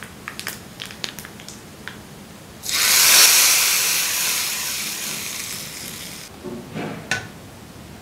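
Hot tempering oil with mustard seeds and dals poured from a small iron tempering ladle into buttermilk curry: a loud sizzle starts suddenly about three seconds in, fades over the next few seconds and cuts off. Light crackling comes before it, and a couple of knocks follow.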